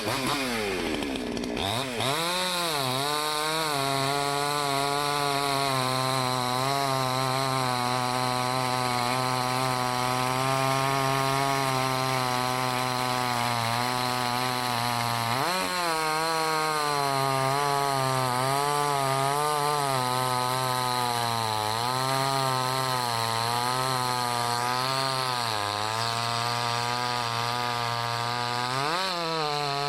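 Salem Master 6220 20-inch two-stroke gas chainsaw at full throttle, buried deep in a large maple log. The engine pitch sags and recovers under the load of the cut. It revs up sharply about halfway through and again near the end.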